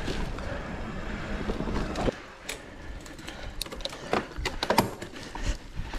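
Mountain bike riding over forest singletrack: a steady rumble of tyres and bike noise for about two seconds, which then drops suddenly to quieter riding with scattered clicks and rattles.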